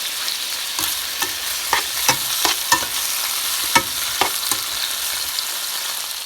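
Leftover pork tenderloin and pasta sizzling in a frying pan as they are reheated, with a utensil stirring the food and clicking and scraping against the pan at irregular moments.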